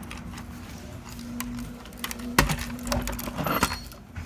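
Garage door closing: a steady motor hum with scattered clicks and knocks of the moving door.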